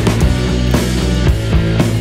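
Loud background rock music with a steady drum beat.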